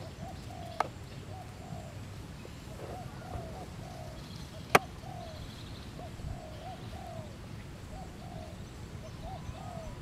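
Short, repeated animal calls, two or three a second, over a low rumble of outdoor background. Two sharp clicks cut through, one about a second in and a louder one near the middle.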